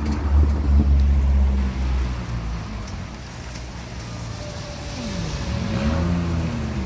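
Road traffic: a motor vehicle's engine rumbles low and loud for the first couple of seconds, and later an engine note dips and then rises in pitch.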